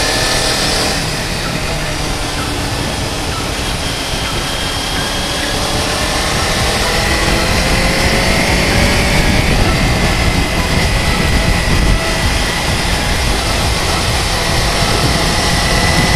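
Motorcycle engine running steadily while riding, its pitch rising slowly in the second half as it picks up speed, under heavy wind rumble on the microphone.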